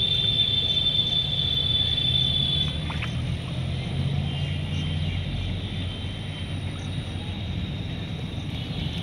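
A steady low engine hum, with a high steady whine over it for the first few seconds that comes back near the end.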